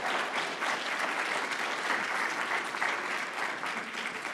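Audience applauding: many hands clapping together, starting to fade near the end.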